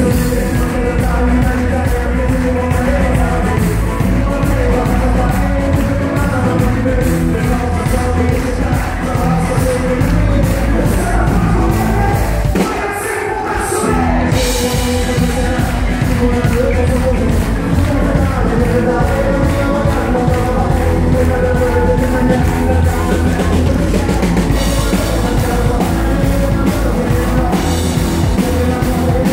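Live country-rock band playing loud, with electric and acoustic guitars, fiddle and drum kit on a steady beat. About twelve seconds in the bass and drums drop out for a moment, then the full band comes back in.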